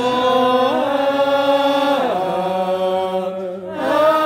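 Voices singing Orthodox liturgical chant in slow, held notes, the melody stepping down about two seconds in and rising again near the end.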